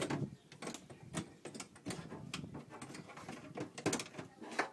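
Irregular string of sharp metal clicks and knocks as a replacement power-window regulator, with its rail, motor and cables, is worked into place inside a car door.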